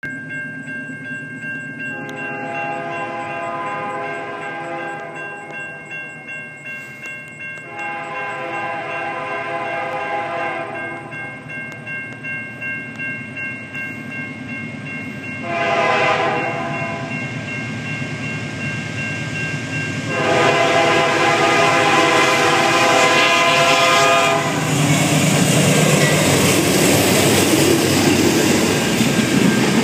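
Freight locomotive horn sounding the grade-crossing signal as the train approaches: two long blasts, a short one, then a final long one. The CN locomotive and freight cars then rumble past over the crossing for the last few seconds. Under the early part a crossing signal bell rings steadily.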